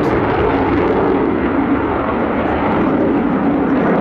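Dassault Rafale fighter jet's twin turbofan engines running at high power during a display flight: a loud, steady jet noise that holds level throughout.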